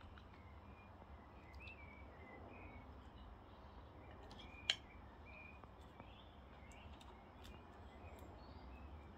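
Faint garden birds chirping, short calls repeating throughout over a low steady hum. About halfway through comes one sharp clink, a metal spoon against the dish.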